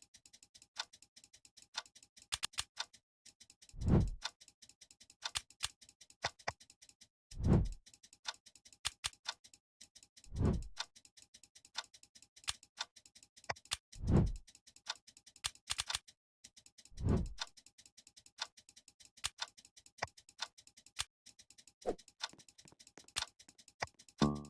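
Clock ticking sound effect, sharp ticks a few times a second, with five deep falling booms spaced a few seconds apart, as under a countdown timer.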